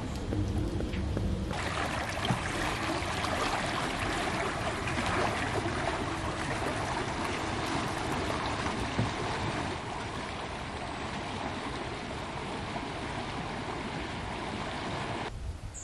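Steady outdoor ambience: an even rushing noise of wind and water with no distinct events. It grows about a second and a half in and drops slightly around ten seconds.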